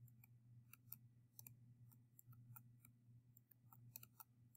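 Faint, irregular clicks of a digital pen stylus tapping on a tablet surface during handwriting, over a low steady electrical hum.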